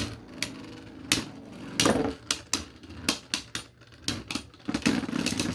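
Two spinning Beyblades clashing over and over in a plastic stadium, a string of sharp, irregular clicks over the steady whir of the spinning tops as the battle comes down to stamina.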